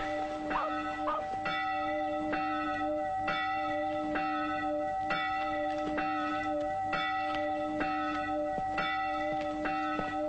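Church bell ringing, struck about once a second, each stroke ringing on into the next.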